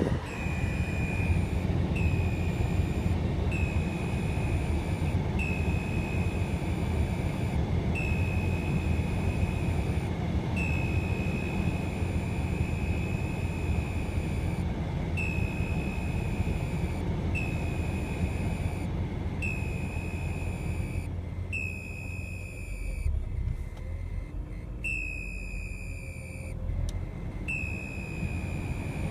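A high-pitched squeal from a BMW E46 M3, sounding again and again at uneven intervals of a second or two, each note sagging slightly in pitch, over a steady low engine and road rumble. Near the end the rumble eases for a few seconds while the squeal keeps coming.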